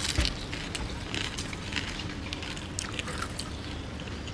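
Crispy fried rice-paper prawn dumpling crackling as fingers break it apart, with wet squishing as the torn piece is dipped into the sauce. The crackles come as scattered sharp clicks, a few close together around the middle.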